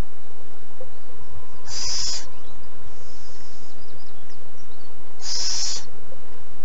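Juvenile little owl giving short, harsh hissing calls, the wheezy food-begging call of owlets. There are two loud hisses about three and a half seconds apart, with a fainter one between them.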